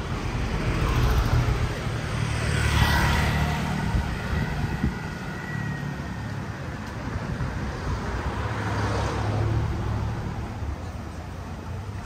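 Outdoor ambience of a steady low rumble with two swells of rushing noise, one about a second in and another around nine seconds, and a faint whine between them, like passing motor vehicles.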